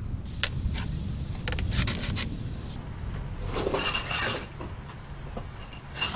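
Steel wire spokes of a Honda TMX 155 wheel hub clinking and rattling as they are pulled out and handled. There are several sharp clicks, and a short jangling rattle about four seconds in.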